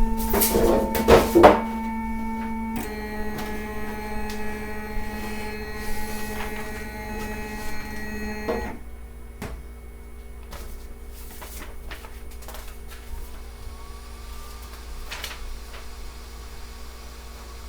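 FlashForge Creator Pro 3D printer's stepper motors whining in steady pitched tones as the machine moves, with some clattering in the first two seconds. The tone changes about three seconds in, and about nine seconds in it drops to a quieter steady hum.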